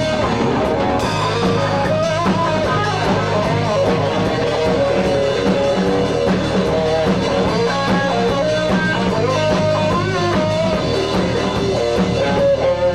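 Live rock band playing: electric guitar over bass guitar and a drum kit, at a steady loud level with sustained, bending guitar notes.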